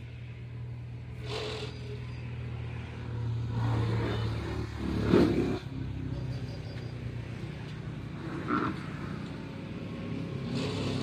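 A motor vehicle engine running steadily, swelling louder about four to five seconds in.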